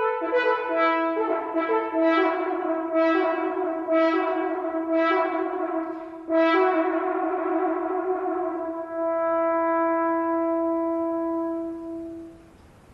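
French horn playing a melodic phrase with piano accompaniment, ending on one long held note that fades out near the end.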